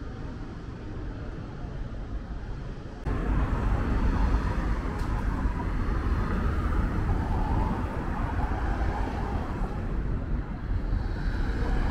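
City street ambience: traffic and general street noise with a steady low rumble. The sound jumps suddenly louder about three seconds in.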